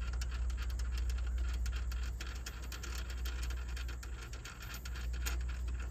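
Small metallic clicks and scratches of a nut being turned by hand onto a bolt inside a steel windshield frame, over a steady low hum.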